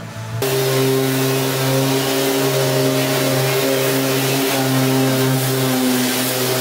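Orbital sander running steadily on body filler on a car's front fender, a constant hum over a strong hiss. It starts abruptly about half a second in.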